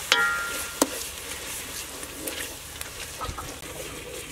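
A cooking utensil knocks twice against an aluminium pot, less than a second apart near the start, the first with a short metallic ring. Faint stirring of paste in the pot follows.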